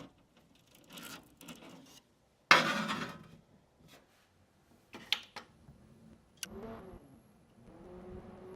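Clicks, knocks and rubbing of computer parts being handled during a PC build, with one loud clatter about two and a half seconds in. Near the end a steady low hum with a few held tones starts.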